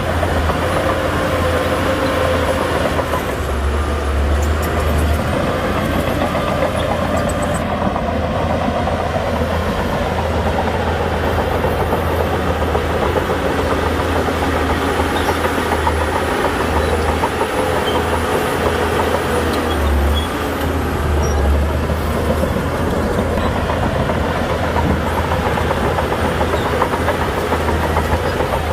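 Heavy diesel earthmoving machinery running continuously under load, a loud steady rumble with an engine note that wavers slightly.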